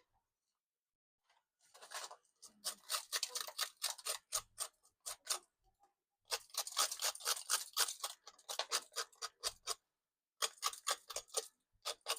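A knife scraping roasted food in quick, short strokes, about five a second, in three runs with brief pauses between.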